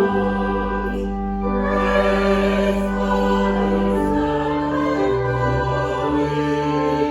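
Slow choral music of long held chords, the harmony changing every second or two.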